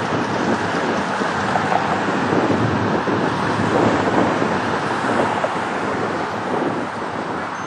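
Wind rushing over the microphone, mixed with the distant roar of a twin-engine jet airliner on final approach; the noise swells a little mid-way and eases near the end.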